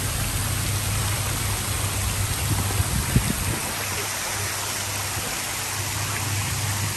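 Large public fountain splashing: a tall central jet and ring of smaller jets falling into a stone basin, an even rushing hiss of water. A steady low rumble runs beneath it, with a couple of dull knocks about three seconds in.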